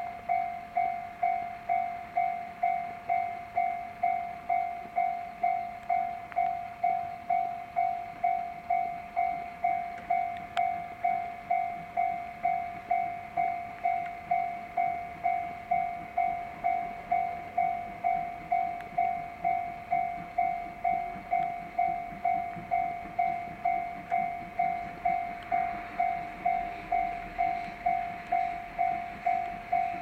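Japanese level-crossing alarm ringing its steady electronic clang, about three strokes every two seconds, signalling an approaching train. A faint rumble from the approaching steam train comes in underneath near the end.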